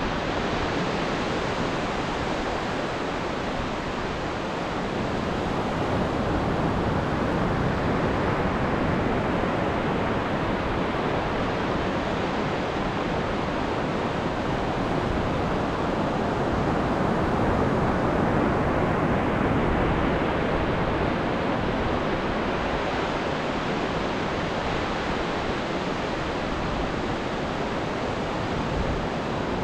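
Ocean surf washing onto the shore: a steady rush of breaking waves that slowly swells and eases twice.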